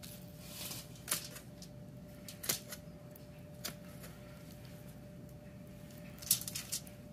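Kitchen poultry shears snipping through the bones along a Cornish game hen's backbone: three sharp snips about a second apart, then a few lighter clicks near the end.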